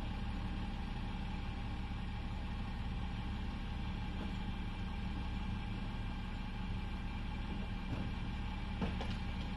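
Refuse collection lorry's diesel engine idling steadily with a low hum, with a couple of light knocks near the end.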